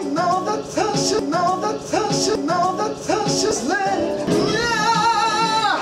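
A man singing a short rising phrase over and over, about twice a second, then holding one long wavering note that stops abruptly.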